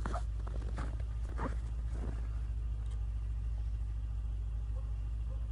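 ZID 4.5 single-cylinder engine on a homemade cone log splitter running steadily, a low even drone. A few soft crunches come in the first two seconds.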